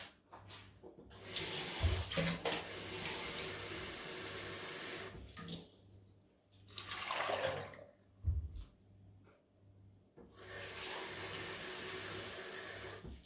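Kitchen tap water running into a sink in two long spells, with a shorter gush between them, as produce is washed. A couple of dull knocks come about two seconds and eight seconds in.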